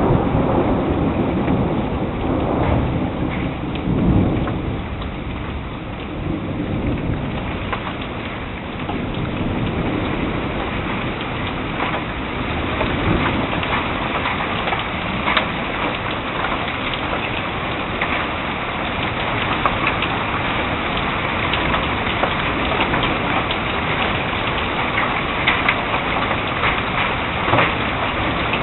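Thunderstorm: a roll of thunder rumbles through the first several seconds, loudest about four seconds in, over steady rain. After it fades, the rain keeps falling with many small sharp ticks of drops hitting nearby surfaces.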